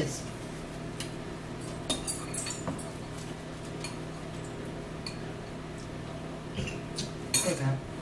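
Spoons clinking against noodle bowls during a meal: a few short clinks about two seconds in and a louder cluster near the end, over a steady low hum.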